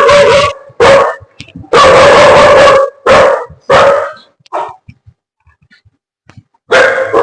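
Pet dog barking loudly and repeatedly, in runs of barks of up to about a second each. It falls quiet after about five seconds, then barks again near the end. It is barking at its owner as at a stranger, not recognising her in different clothes.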